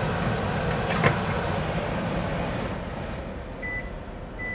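Steady fan noise of a filterless kitchen chimney (range hood), with a sharp click about a second in. The fan noise eases off after about three seconds, and short high beeps from the control panel start near the end.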